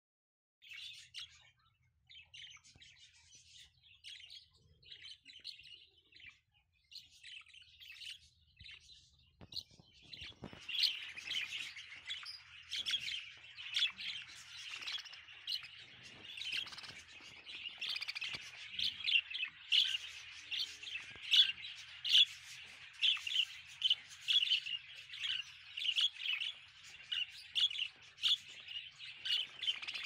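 Caged flock of budgerigars chirping and chattering: sparse at first, then from about ten seconds in a denser, louder run of quick overlapping chirps.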